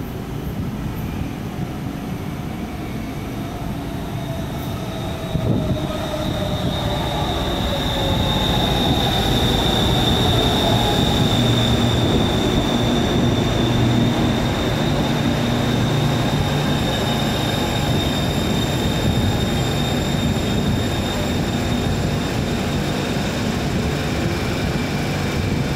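Bangkok Skytrain Siemens EMU-A electric train running in and slowing into an elevated station: a rising rumble of wheels on rail that peaks about halfway through, with a high steady whine from about six seconds in and a low hum as it slows.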